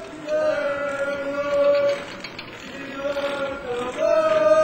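A voice chanting long held notes, three in a row with short breaks between them.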